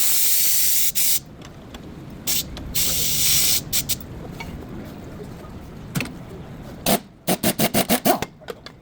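Two bursts of spraying hiss about a second long each, with a few shorter spurts between them, then near the end a quick run of about seven sharp metallic knocks.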